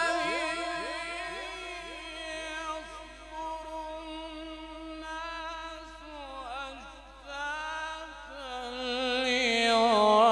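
A man reciting the Quran in the melodic tajweed style, sung through a PA system. He holds long, ornamented notes with a quavering pitch, and the voice carries a rapid repeating echo. Near the end his pitch climbs and the voice swells louder.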